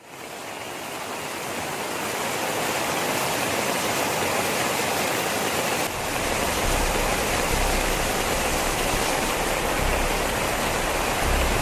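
Floodwater or heavy rain making a loud, steady rushing roar that fades in at the start. About six seconds in the sound changes abruptly and a low rumble joins it.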